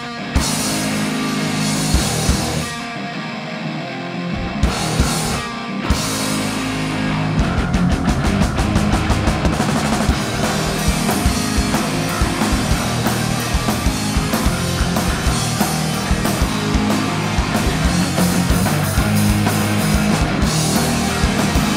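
Pop-punk band playing live, with electric guitar and drum kit in an instrumental intro. The full band comes in louder and denser about six seconds in.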